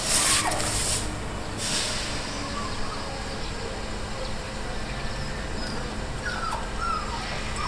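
A dog whining, a few short whimpers in the second half. A burst of rustling in the first two seconds, and a steady low hum underneath.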